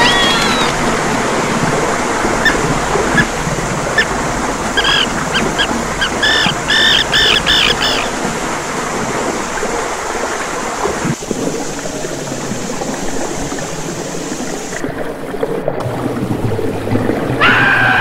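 Steady rush of falling water and surf, with a run of short, repeated seabird calls about five to eight seconds in. A pitched, wavering cry starts near the end.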